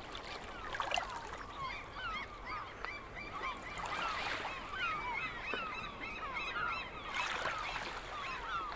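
A flock of birds calling over and over, many short overlapping calls, with a few soft swells of surf washing in.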